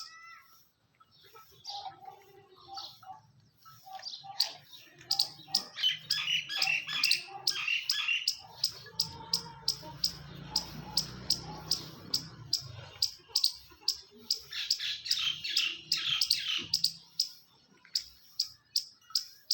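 Birds chirping: a steady run of short, high chirps, about two a second, with softer, lower calls mixed in.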